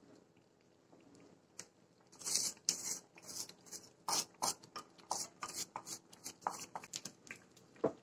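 Wooden spatula scraping and knocking against a nonstick pan while stirring semolina into boiling water for rava kesari, kept moving so no lumps form. A quick, irregular run of short scrapes and clatters starts about two seconds in.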